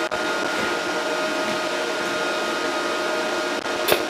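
A steady mechanical whir with a constant hum, and a single sharp click near the end.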